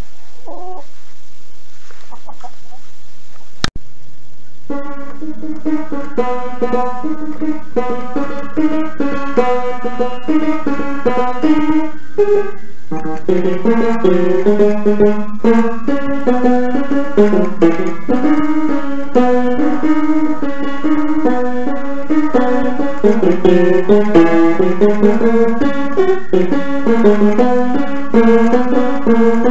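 Piano played with one hand: a simple tune of separate notes begins about five seconds in and thickens with lower notes partway through. A sharp click comes just before the playing starts.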